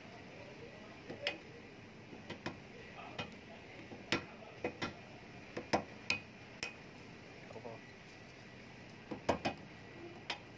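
Hand hammer striking a steel punch held against a small rusty part clamped in a vise: a dozen or so sharp metallic taps at uneven intervals.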